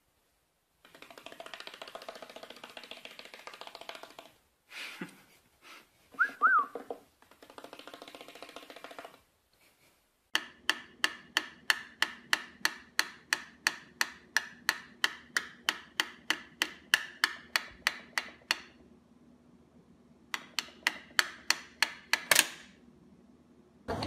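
A cockatiel pecking rapidly at the keys of a small toy laptop: an even run of sharp clicks, about four a second. The clicks pause for a couple of seconds, then start again.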